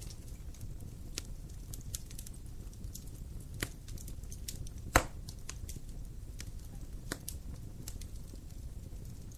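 Wood fire crackling: irregular sharp pops and snaps over a low steady rumble of the burning, with one louder pop about five seconds in.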